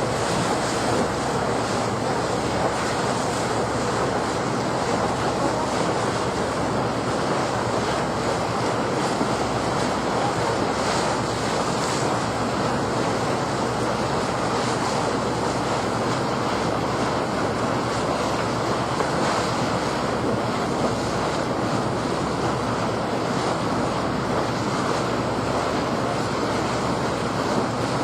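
Steady rushing noise of wind blowing over the microphone, with no speech or music.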